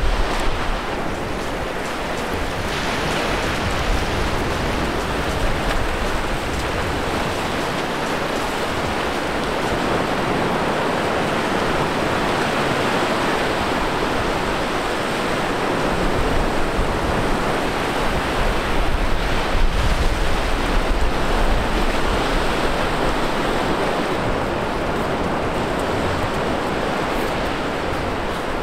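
Surf breaking and washing up the beach, a steady hiss of waves, with gusts of wind rumbling on the microphone now and then.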